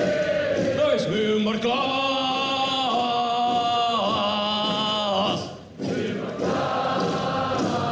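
Large audience singing a marching sing-along in unison, loudly and off-key, led by a man's voice. It has several long held notes, a short break about five and a half seconds in, and then the singing resumes.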